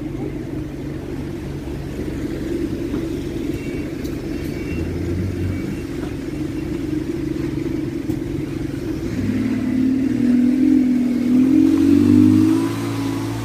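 Alexander Dennis Enviro200 single-deck bus engine running steadily at a stop, then revving up and growing louder from about nine seconds in as the bus pulls away past.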